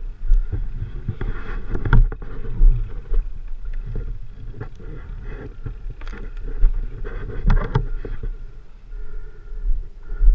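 Uneven low rumble on the helmet-camera microphone with knocks and rattles as a fallen dirt bike is grabbed and handled, the knocks bunched about two seconds in and again after six seconds.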